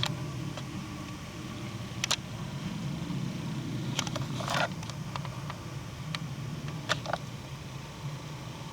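Steady low wind rumble on the microphone, with a handful of short, sharp crackles of twigs and forest litter, one a little longer about four and a half seconds in.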